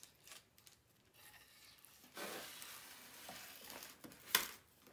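Spatula stirring and scraping thick chocolate oatmeal no-bake cookie mixture in a stainless steel saucepan. A few light clicks come first, then a steady wet scraping for about two seconds from about halfway, and one sharp tap near the end.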